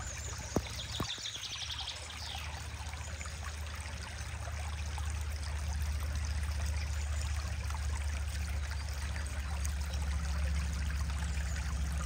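Small forest brook trickling and babbling steadily where two streams join.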